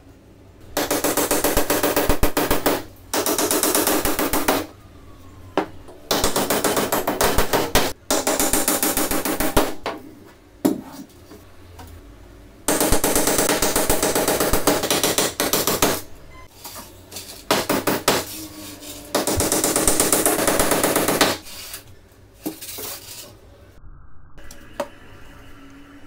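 Power drill-driver driving screws into a wooden frame, in six runs of two to three seconds each, with small knocks of handling the frame in between.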